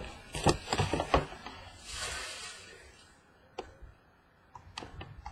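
Hands handling trading-card boxes and packaging: a few sharp knocks and clicks, a short rustling hiss about two seconds in that fades away, then a few light clicks.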